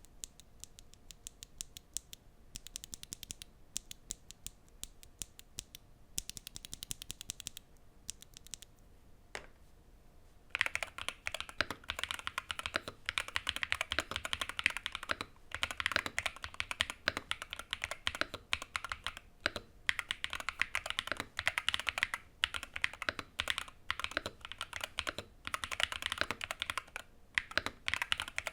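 Typing on a custom 60% keyboard with Gateron Magnetic Green Dragon linear Hall-effect switches, PBT keycaps and a foam-damped, brass-weighted KBDfans Tofu 60 case: a quick run of keystroke clicks. The typing is light and quiet for about the first ten seconds, then suddenly louder and fuller for the rest.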